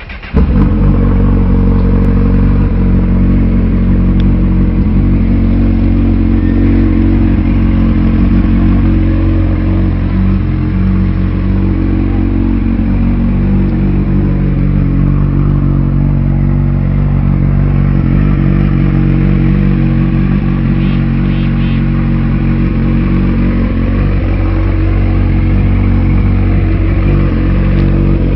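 Honda CB1000R inline-four motorcycle engine idling through a Hurricane aftermarket sport exhaust, a loud, deep, steady idle that sets in suddenly just after the start and holds even throughout.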